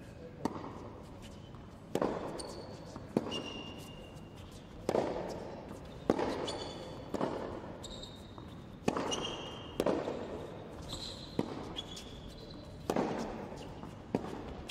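Tennis rally on an indoor hard court: sharp racket-on-ball hits and ball bounces about every second or so, each echoing through the large hall, with short high squeaks of shoes on the court in between.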